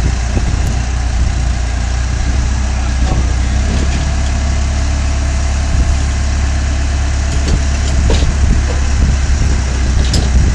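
Diesel engine of the digging machine holding the shoring box, idling steadily with a deep low hum, with a few light knocks over it.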